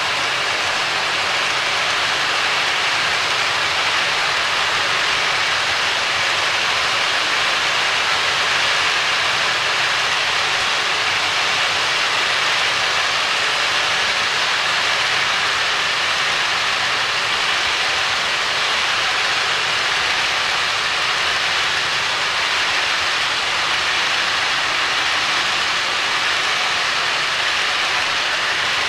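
OO-gauge model railway coaches rolling over the track, a steady, even rushing noise as a long train runs past without stopping.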